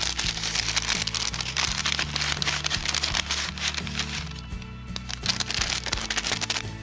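Paper rustling and crinkling in several bouts as a striped paper bag is handled and opened. Background music plays throughout.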